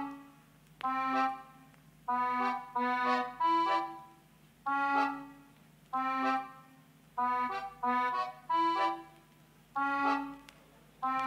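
Background music: a run of short, bright chords, roughly one a second, each starting sharply and fading.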